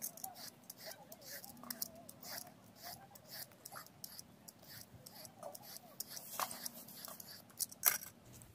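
Small knife peeling the skin off a zucchini: a run of short, crisp scraping strokes at an irregular pace, a louder one about six and a half seconds in and another near the end.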